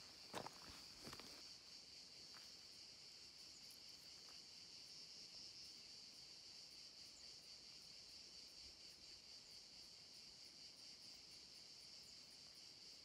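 Faint, steady, high-pitched chorus of crickets. A few footsteps crunch on loose stony ground in the first second or so.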